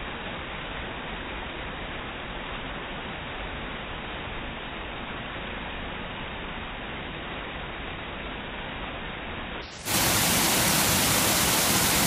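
Rushing water of a tiered waterfall spilling over stone ledges into a pool, slowed down, so it sounds as a dull, muffled steady hiss. Near the end it switches abruptly to a louder, brighter rush of falling water.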